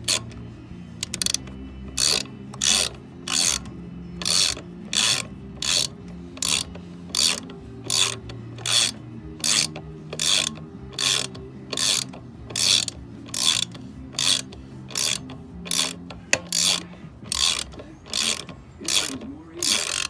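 Ratchet wrench tightening a caster wheel's mounting nut, its pawl clicking in a rapid burst on each stroke, in even strokes about one every three-quarters of a second.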